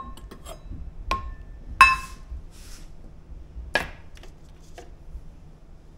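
Stainless steel measuring cup clinking as flour is tipped into a plastic food processor bowl: four sharp knocks with a short metallic ring, the loudest about two seconds in.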